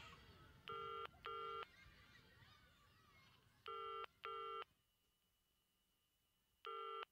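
Electronic telephone ringing tone in the British double-ring pattern: two short rings close together, repeated about every three seconds, three times.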